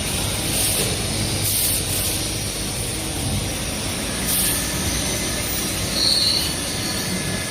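CNC lathe running while it machines a stainless steel part: steady mechanical noise with a thin high whine and a few brief high hisses.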